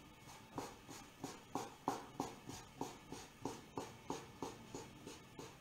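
Knife tapping on a wooden cutting board about three times a second, cutting a rope of spelt-flour dough into small gnocchi.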